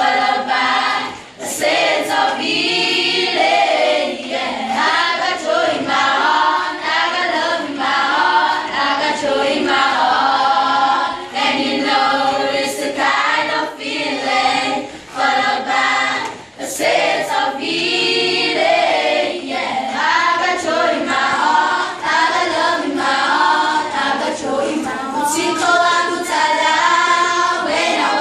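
Grade 7 school choir of children singing together, with short breaks between phrases.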